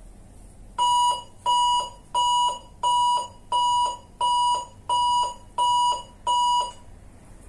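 A 400-watt electrosurgical unit's alarm beeps nine times in an even, high-pitched series while its display shows error E01. It is the unit's return-electrode alarm, set off when the tissue is lifted off the patient plate and the current circuit is broken.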